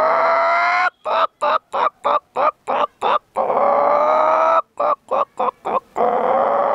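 A boy imitating a hen's cackle with his voice: runs of quick short clucks, each ending in a long drawn-out squawk that rises slightly, three times over. It is the call a hen makes around egg-laying time.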